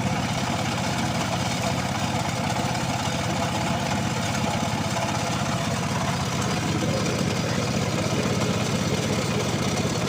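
A small engine idling steadily, with no change in speed.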